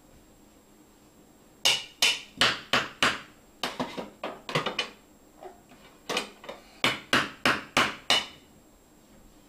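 Wooden spatula banged against a hard surface: three runs of sharp knocks, about three a second, starting a couple of seconds in, with short pauses between runs.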